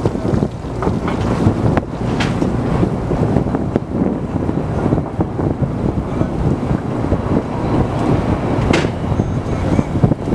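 Fishing boat at sea: a steady low rumble of the boat running, with wind buffeting the microphone and a couple of sharp knocks as the full net is handled on deck.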